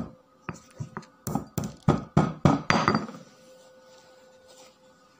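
Marble pestle pounding black peppercorns in a marble mortar: a quick run of sharp knocks, about three a second, that stops about three seconds in.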